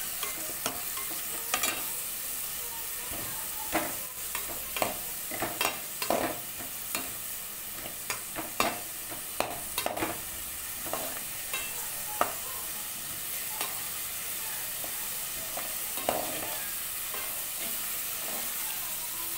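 Chopped onion, green chilli, garlic and ginger sizzling in hot oil while they are sautéed until soft. A perforated steel spatula stirs them, scraping and clicking against the metal pan at irregular moments, most often in the first half.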